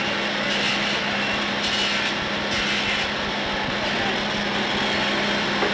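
Steady machine noise with a constant hum underneath: a hosel-reducing machine cutting down the hosel of a stainless steel golf iron head.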